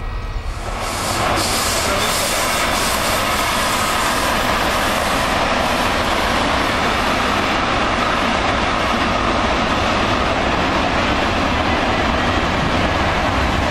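Freight train of covered wagons rolling past on the rails, a steady, loud running noise of wheels on track that sets in about a second in, with a few sharp clacks in its first seconds.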